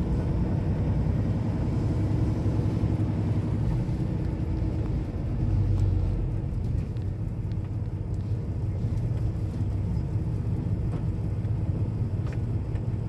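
Semi truck's diesel engine running steadily, a low hum heard from inside the cab as the truck rolls slowly.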